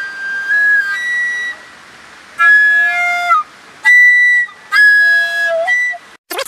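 Flute playing a slow phrase of long, held high notes, several separated by brief pauses, with one note sliding down in pitch. The melody stops abruptly shortly before the end.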